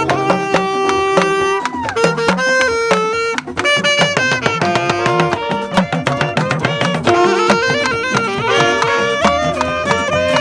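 Saxophone playing a melody over musical accompaniment, with quick note changes and some notes bent in pitch.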